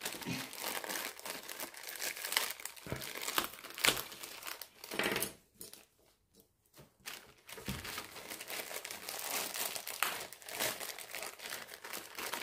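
Thin clear plastic bags of small toy parts crinkling as they are handled and opened, in irregular rustling bursts with a short lull about halfway through.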